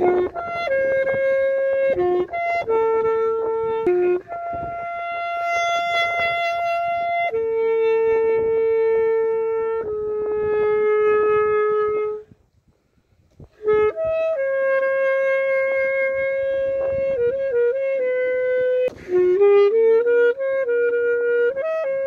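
Saxophone playing a slow melody of long held notes with quicker runs between them. It stops for a short breath a little past halfway, then the melody picks up again.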